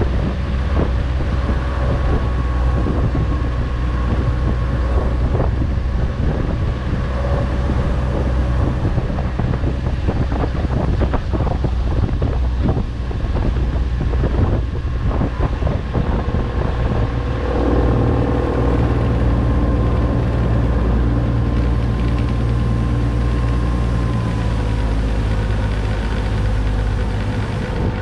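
Motorboat engine running steadily under way, with rushing water and wind on the microphone. The engine note shifts about two-thirds of the way through.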